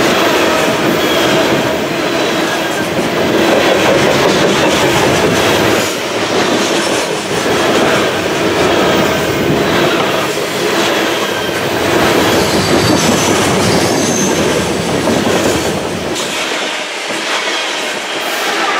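Freight train's coal hopper cars rolling past at close range: a loud, steady rumble of steel wheels on rail with a rhythmic clickety-clack over the joints and faint high wheel squeal. The deep low rumble falls away near the end.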